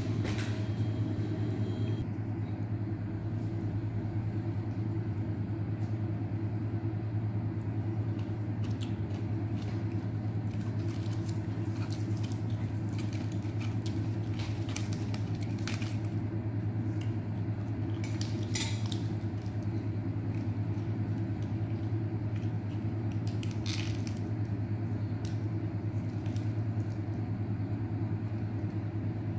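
A steady low hum throughout, with scattered light clicks and clinks of food and fingers against a ceramic bowl as a papaya salad is tossed by hand.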